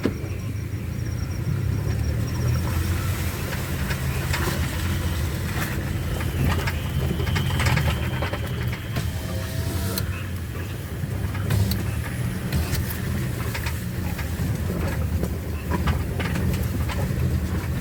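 Ambulance driving on a rough rural road, heard from inside the cab: a steady low engine rumble with frequent knocks and rattles from the vehicle.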